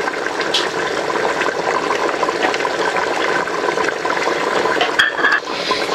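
Paya (trotter curry) bubbling at a steady boil in an open aluminium pressure cooker: an even, continuous watery hiss.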